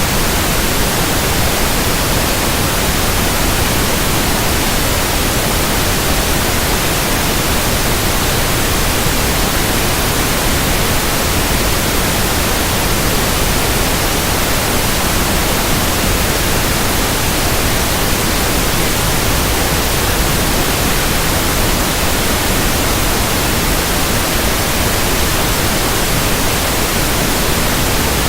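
Pink noise test signal used for speaker testing: a steady, unbroken hiss spread evenly across the whole range, with no change in level.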